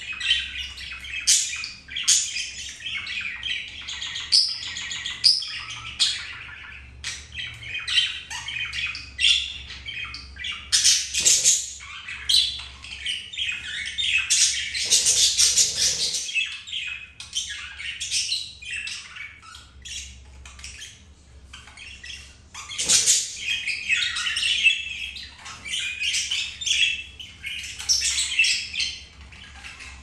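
Budgies chattering and chirping in a continuous stream of rapid short calls, busiest and loudest around the middle and again near the end.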